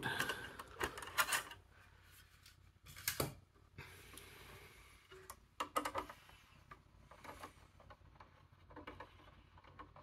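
Light clicks and taps of a screwdriver and a 2.5-inch drive caddy being handled inside an HP EliteDesk mini PC's chassis as the drive is taken out, coming in small scattered clusters.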